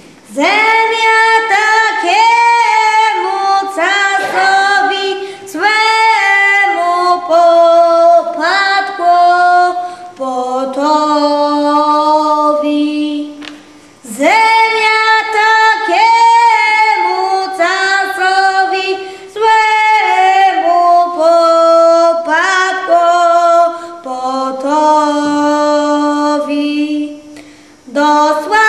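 A small group of women and a boy singing a folk song unaccompanied, in long held phrases with short breaks between them.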